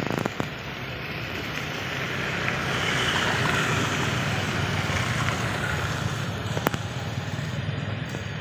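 Outdoor background noise with a road vehicle passing, swelling over a few seconds and fading again, with a couple of sharp clicks near the start and another near the end.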